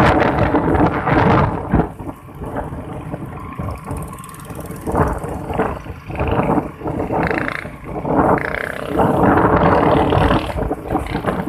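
Gusty wind buffeting the phone's microphone in loud rumbling surges, easing for a few seconds in the middle and rising again near the end, with a faint steady hum beneath.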